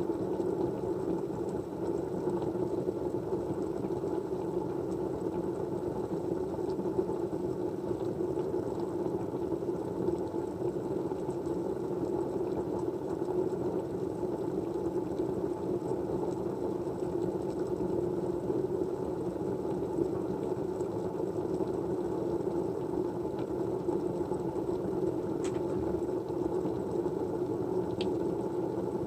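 Steady background white noise, an even hiss-like hum with no rhythm, with a couple of faint ticks near the end.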